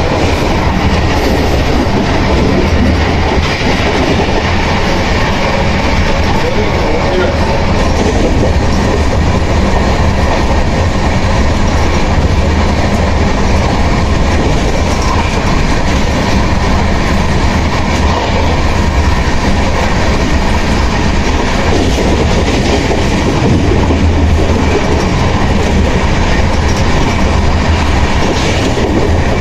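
CR Rajdhani Express passenger coach running on the track, heard from on board: a loud, steady rumble of wheels on rails that holds at an even level throughout.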